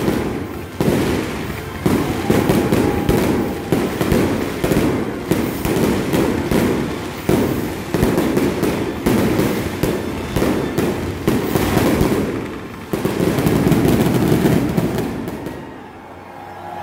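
Aerial fireworks shells bursting in rapid succession: a dense string of bangs and crackles that eases off near the end.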